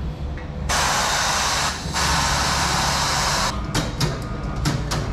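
Compressed air hissing from a workshop air line used in fitting a motorcycle tyre. A long blast of about three seconds, broken once briefly, is followed by a quick run of short spurts.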